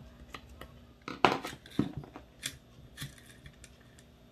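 Sharp clicks and knocks of a metal Version 3 airsoft gearbox shell and a screwdriver being worked by hand, as a screw is driven to close the shell halves; four or so knocks, the loudest a little over a second in.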